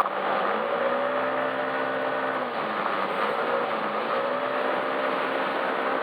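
Yamaha Majesty S scooter's 155 cc single-cylinder engine running on the move, its note climbing and falling back a few times as the throttle is opened and eased, over a steady rushing noise.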